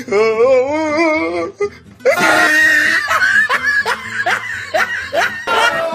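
Men laughing hard: one long wavering laugh for the first second and a half, then after a brief pause a run of loud overlapping laughter with falling 'ha-ha' strokes.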